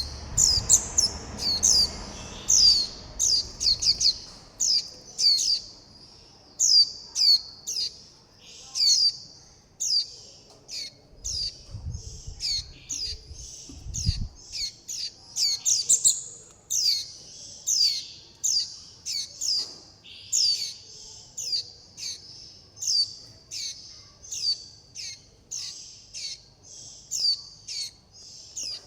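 Juvenile white-eyes giving a continuous run of thin, high begging and contact calls, each a short downward-slurred note, about two or three a second.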